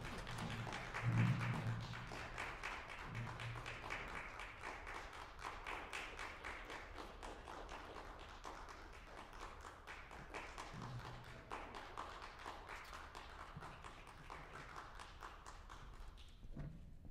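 An audience applauding with many hands, a louder low sound about a second in; the clapping thins and dies away near the end.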